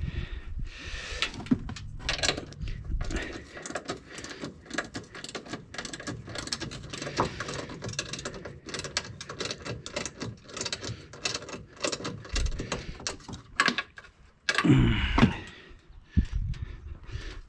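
Irregular metallic clicks and clinks of hand tools and suspension parts being handled while working on a truck's front strut assembly, with a louder clunk about fifteen seconds in.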